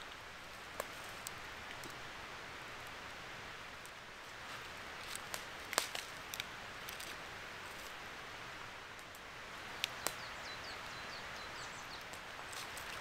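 Outdoor ambience: a steady hiss with scattered sharp clicks and snaps, and a small bird chirping a quick run of short, falling notes near the end.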